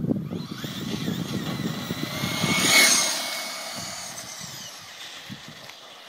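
Traxxas Stampede VXL RC truck's brushless Velineon motor whining at speed on a pass-by. The whine rises in pitch and loudness as the truck approaches, is loudest as it passes about three seconds in, then drops in pitch and fades as it drives away.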